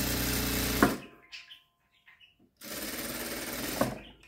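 JACK industrial single-needle sewing machine stitching in two short runs: the first stops about a second in, the second starts a moment later and lasts about a second and a half. Each run ends with a sharp click as the machine stops.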